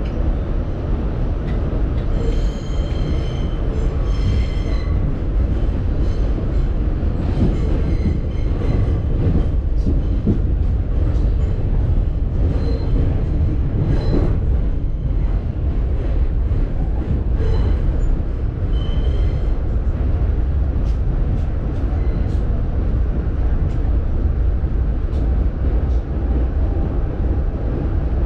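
New York City subway train running through a tunnel, heard from inside the car: a steady low rumble, with the wheels squealing on the rails several times.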